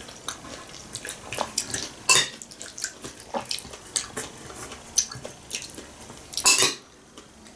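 A metal spoon clinking and scraping in a glass bowl, with wet chewing sounds from eating fruit salad. The loudest moments are two longer scrapes, about two seconds in and again near the end.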